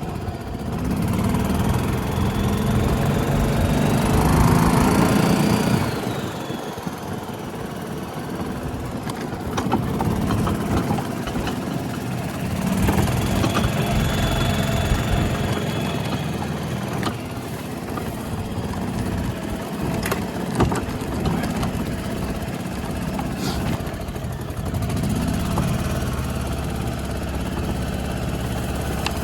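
1992 Club Car DS golf cart's single-cylinder gas engine running, its revs rising and falling three times as it is throttled up and back. Just repaired with a new carburetor and cleaned magneto, it is still cold and was hard to start, needing a little choke.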